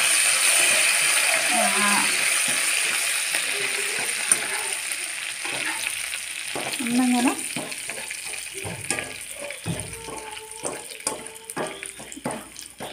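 Curry leaves sizzling and spattering in hot coconut oil in a frying pan, the sizzle fading steadily as the leaves crisp. In the second half a wire-mesh skimmer clicks and scrapes against the pan as it lifts the leaves out.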